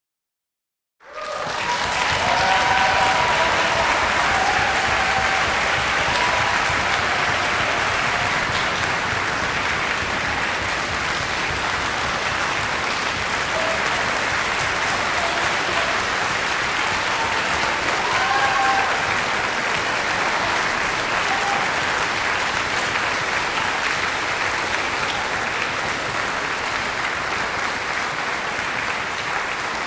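Audience applauding steadily, starting about a second in, with a few brief voices calling out.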